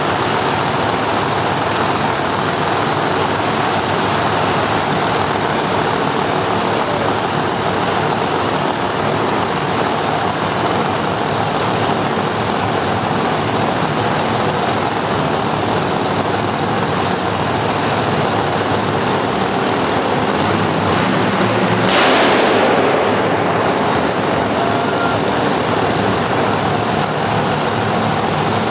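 UniFit quarter-mile dragster's engine idling loudly, with one short throttle blip about three quarters of the way through that fades back to idle.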